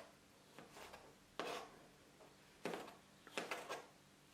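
Kitchen knife slicing through tomatoes on a cutting board: about half a dozen short, irregular cutting strokes, one longer stroke near the middle.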